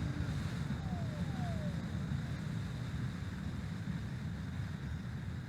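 Steady low rumble of wind on the microphone, with a faint electric ducted-fan jet whine falling in pitch about a second in, as an RC jet throttles back for landing.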